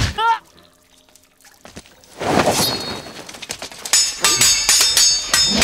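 Sword-fight sound effects. A hard hit with a metallic ring comes right at the start, a rush of noise follows from about two seconds in, and from about four seconds there is rapid clashing of swords, the blades ringing.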